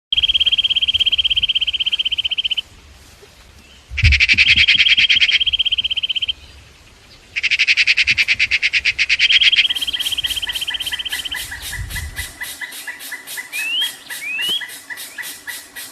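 Birds calling: a rapid, high trill that breaks off, harsh buzzy chattering bursts about 4 and 7.5 seconds in overlapping further trills, then from about 10 seconds a fast, even ticking series with three short rising whistles near the end.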